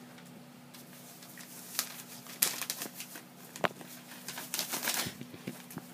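A Jack Russell terrier puppy chewing and pawing at a stiff white sheet: irregular crinkling and rustling with sharp clicks, starting about a second in.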